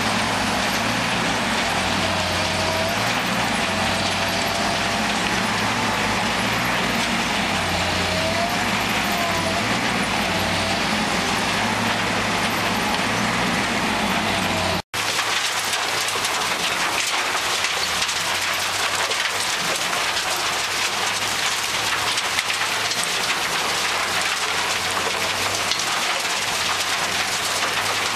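Heavy diesel machinery running, with a wavering whine rising and falling over it. After a brief break about halfway through, this gives way to a steady rattling hiss of shredded waste tumbling in a Terra Select T6 trommel screen's rotating drum.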